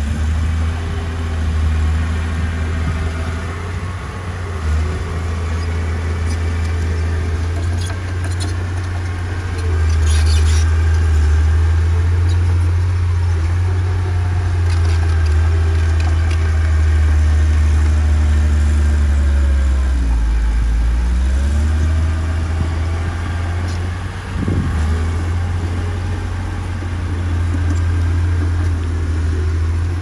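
Diesel engine of heavy earthmoving machinery running steadily under work; its note sags and comes back up about two-thirds of the way in.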